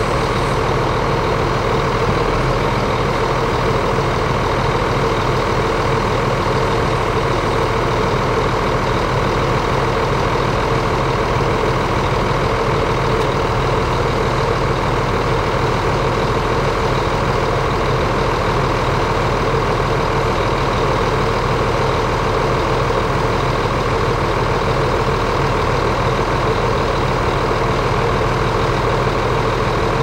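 Crawler bulldozer's diesel engine running steadily, a constant drone that holds the same pitch and level throughout.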